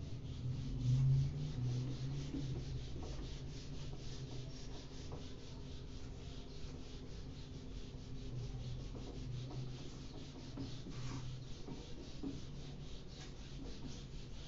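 Whiteboard duster rubbing across a whiteboard in quick repeated back-and-forth strokes, wiping the board clean.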